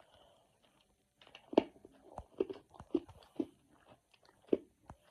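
Chewing a glucose tablet: a string of irregular crunches, the loudest about a second and a half in and again near the end.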